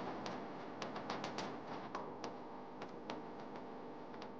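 Faint, irregularly spaced clicks and ticks, about fifteen in all, over a steady low hiss.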